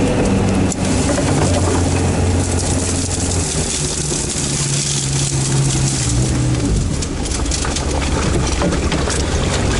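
Sherp all-terrain vehicle's diesel engine running steadily with a crackling hiss of reeds and ice brushing past. The engine note rises about a third of the way in and falls back about two-thirds of the way through.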